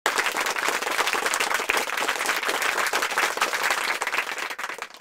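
Applause sound effect: a crowd clapping, cutting in suddenly and fading out near the end.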